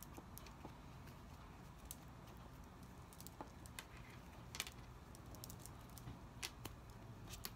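Faint, scattered small clicks and light handling noise from fingers braiding a cord necklace, over quiet room tone.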